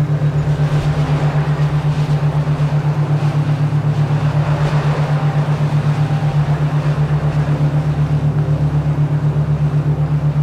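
Steady low hum pulsing evenly several times a second, the throbbing tone of a relaxation binaural beat, with a faint hiss behind it.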